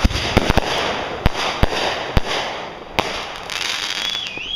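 Fireworks going off: a quick series of sharp bangs over a dense crackle, the bangs thinning out after about three seconds. Near the end a wavering whistle falls in pitch.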